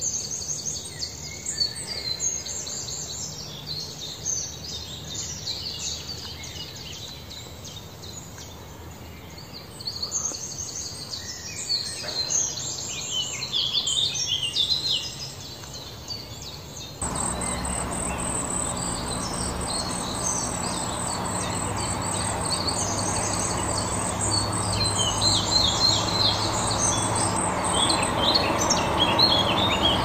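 Several small songbirds singing and chirping in quick, overlapping phrases. About halfway through, the sound changes abruptly and a steady low hum sits under the birdsong for the rest of the time.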